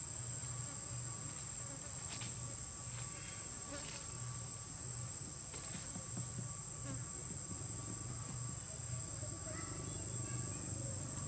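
Insects droning steadily at a high, unchanging pitch, with a fainter steady tone lower down, over a low hum. A few faint rustles come through about two, four and six seconds in.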